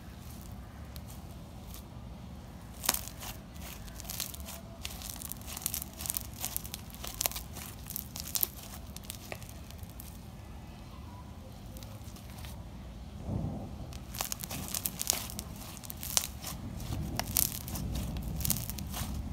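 Clear slime with glitter mixed in being stretched, folded and kneaded by hand, giving many small sharp, irregular pops and crackles as it pulls apart and trapped air bursts.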